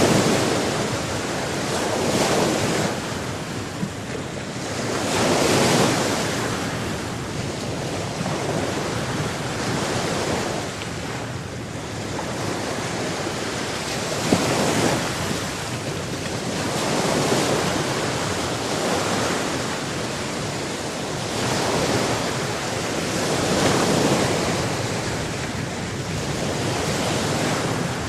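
Ocean waves breaking and washing up on shore, the surf swelling and easing every three to four seconds.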